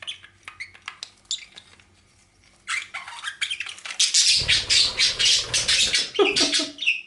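Male pet bird chattering in courtship, a fast run of squawky high notes that is loudest from about four seconds in, after scattered short clicks and calls.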